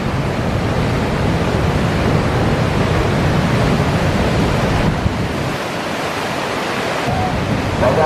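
Big ocean waves breaking: a steady rush of surf and whitewater, its deep rumble easing a little about two thirds of the way through.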